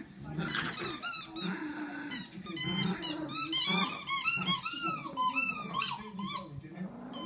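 A Yorkshire terrier and a Weimaraner play-fighting over a toy: a rapid run of short high-pitched squeaks, several a second, with low growling underneath.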